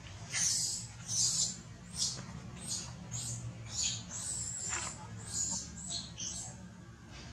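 Baby macaque squeaking, about a dozen short, very high-pitched calls, one or two a second.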